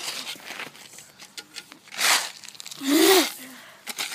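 Gravel crunching and rattling as small pebbles are scraped and scooped with plastic toys: several rough scraping bursts with quick clicks of stones between them. A short vocal sound comes about three seconds in.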